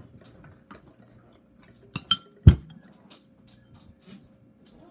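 Tableware handled during a meal: small clicks and knocks, then two sharp ringing clinks about two seconds in, followed at once by a heavy deep thump, the loudest sound.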